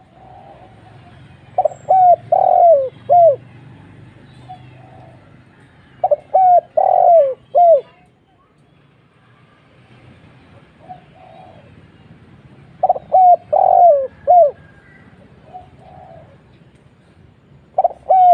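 Spotted dove (tekukur) cooing: three phrases of four or five clear, falling notes every four to six seconds, another phrase starting at the very end, with fainter coos in between.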